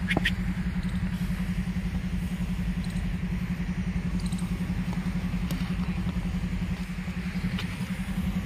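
Engine idling: a steady low hum with a fast, even pulse. A sharp knock sounds about a quarter second in.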